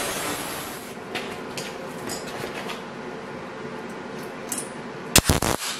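Angle grinder's cut-off disc cutting steel at the start, fading out within the first second, then light metal clinks as a new steel bracket piece is clamped in place. About five seconds in, a short, very loud crackle of a tack weld.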